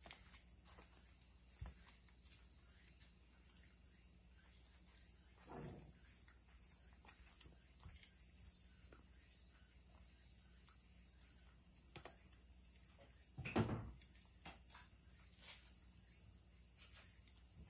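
Insects shrilling in a steady, high chorus, with scattered faint clicks and a few soft knocks, the loudest about three-quarters of the way through.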